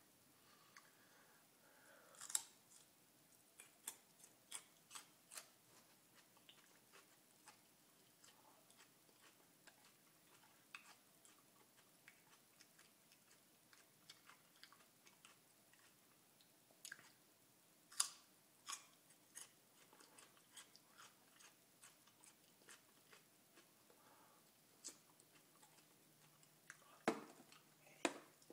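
Quiet, scattered crunching clicks of a person chewing raw garlic cloves, with a few louder sharp clicks near the end.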